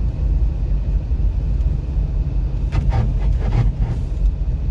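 Steady low rumble of a Kia Sorento XM with the 2.4 petrol engine driving on the road, heard inside the cabin. A few short sharp noises come through about three seconds in.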